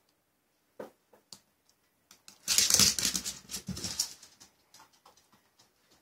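A Shih Poo's claws clicking and scrabbling on a vinyl kitchen floor as it dashes off. A few sharp clicks about a second in are followed by a loud scuffling rush lasting over a second, then scattered light ticks.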